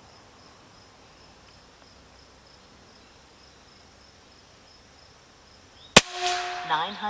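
Insects chirring steadily, then about six seconds in a single sharp crack as a Benjamin Bulldog M257 PCP air rifle fires a 55-grain slug, followed by a short wavering tone.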